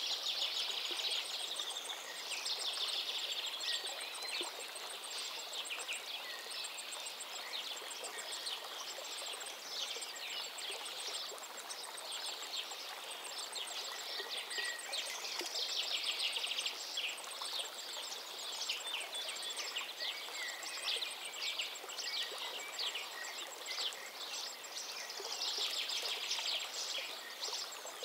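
Nature ambience: many small birds chirping and trilling over a soft, steady rush like running water, with a faint fast ticking high up.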